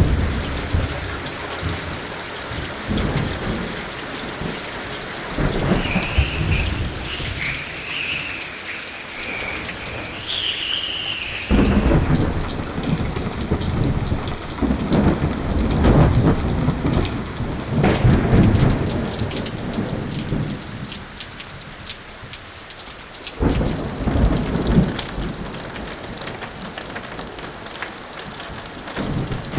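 Thunderstorm: steady heavy rain with repeated rolling thunder, the claps swelling and fading every few seconds, one breaking sharply about twelve seconds in.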